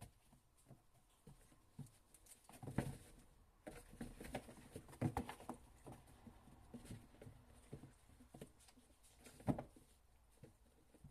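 Kittens moving about, their paws pattering and scuffing with scattered light taps and rustles; a few louder knocks about three, five and nine seconds in.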